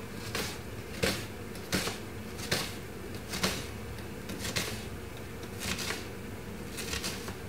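Sharp kitchen knife slicing spring onion on a wooden chopping board. The blade knocks on the board with each cut, about eight times, roughly once a second.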